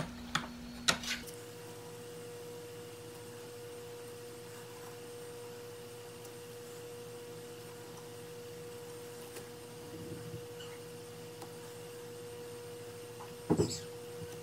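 Faint steady hum-like tone that steps up in pitch about a second in, with a few light clicks and a short cluster of taps near the end.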